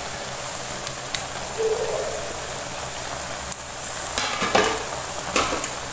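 Clams sizzling steadily in a hot frying pan, with a few clicks and scrapes of a steel spoon against the pan as a thick masala paste is added.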